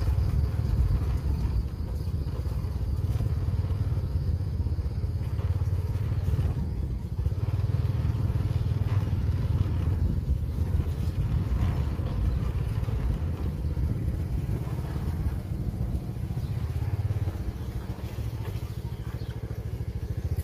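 Small motorbike engine running with a steady, low drone as it is ridden at low speed along a rough dirt lane.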